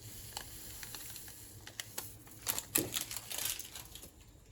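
A few light taps and clicks, bunched together a little past halfway, as a paper packet of vanilla sugar is emptied into the bowl of cream.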